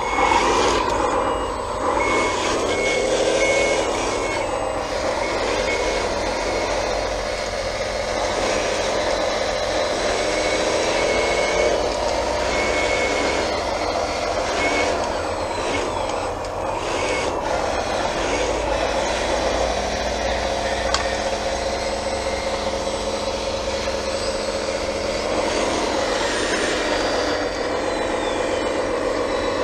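1/14-scale hydraulic RC bulldozer working, its motors and hydraulic pump whining and gliding up and down in pitch as it drives and works. A reversing beeper sounds in short, evenly spaced beeps several times.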